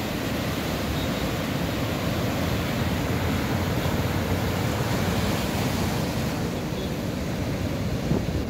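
Heavy storm surf breaking and washing in over the shore and against a boulder seawall, a steady dense rush of water with no single crash standing out.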